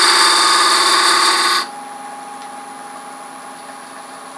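A steel scraper cutting inside the end opening of a spinning wooden workpiece on a wood lathe, a steady loud scraping hiss. It stops suddenly about a second and a half in, leaving the lathe running with a steady hum.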